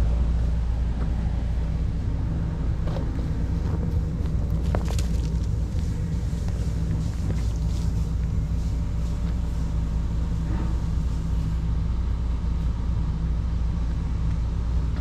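Steady low rumble and hum, with a few faint clicks between about three and five seconds in.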